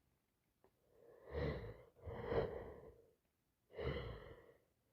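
A person's heavy breathing: three breaths through a runny nose, spaced about a second apart, between sneezing fits that she puts down to allergies or the start of a cold.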